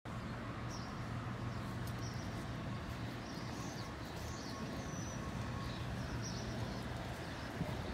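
Downtown street ambience: a steady low hum, with faint, scattered high bird chirps every second or so.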